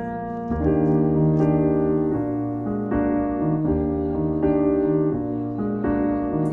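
Background music: soft piano playing a gentle chord pattern, new notes about every half second.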